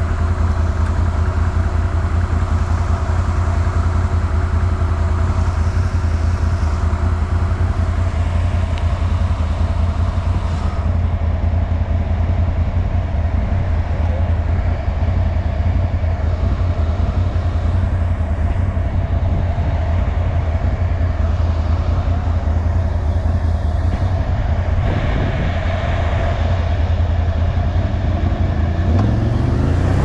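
ATV engine running steadily under way through mud, revving up with a rising pitch near the end.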